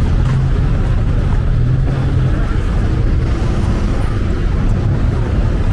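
Steady road traffic: car engines and tyres running past, with a low engine hum in the first two seconds.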